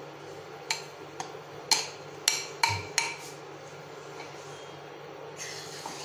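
A steel spoon clinking and scraping against a glass mixing bowl as thick gram-flour batter is scraped out into a steel pot: about six sharp clinks in the first three seconds, then a short soft scraping noise near the end.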